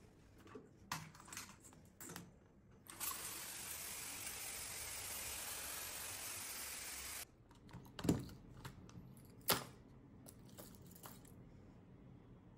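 Handheld shower head spraying water over a fishing rod and baitcasting reel on a tiled floor: a steady hiss for about four seconds that cuts off suddenly. Light handling clicks come before it, and two sharp knocks follow within the next couple of seconds.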